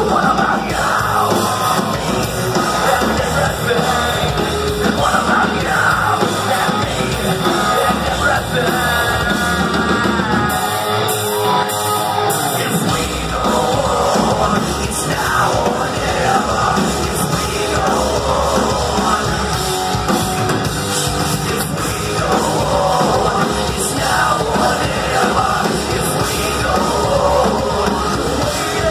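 Heavy metal band playing live at full volume: electric guitars, drums and a singer, heard from within the crowd.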